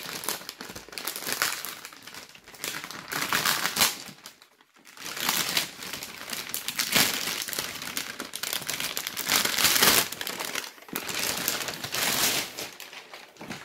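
A grey plastic mailing bag crinkling and rustling as hands tear it open and pull it off a cardboard box. The noise comes in uneven bursts, with a brief lull about a third of the way in.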